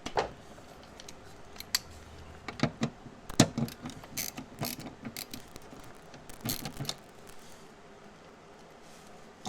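Irregular clicks, taps and short scrapes of hand work on a small boat light fitting, busiest in the middle and sparse near the end.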